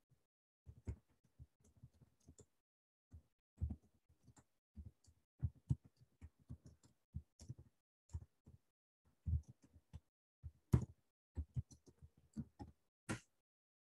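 Typing on a computer keyboard: faint, irregular keystrokes as a line of text is typed.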